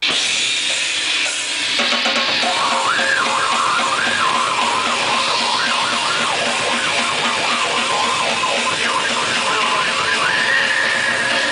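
Loud grindcore music with distorted guitar and drums. A wavering high line runs through the middle and settles into a steady high note near the end.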